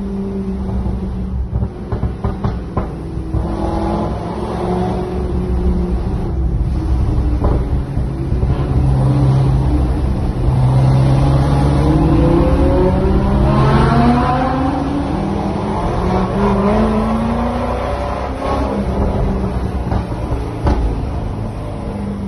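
Sports car engines, among them a Lamborghini Huracán's V10, accelerating hard through a road tunnel, heard from inside a following car. The engine note climbs in pitch several times in quick succession around the middle, then eases back.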